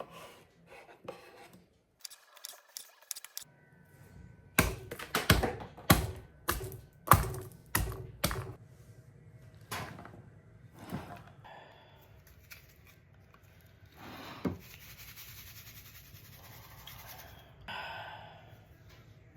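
Kitchen prep handling: a quick run of sharp knocks and clatters, as of dishes and utensils set down and moved, about five seconds in, then scattered single knocks and a stretch of steady hiss.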